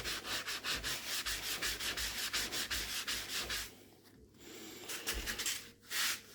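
Fast back-and-forth scrubbing on the wooden fireplace front, about five strokes a second, stopping a little past halfway; a short scrape follows near the end.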